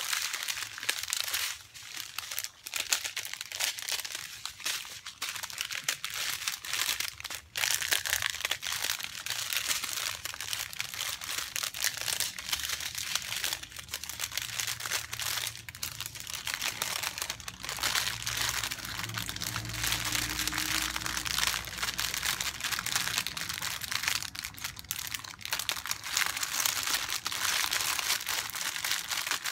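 Small plastic bags of diamond painting drills crinkling and rustling as they are handled and sorted, with many small crackles.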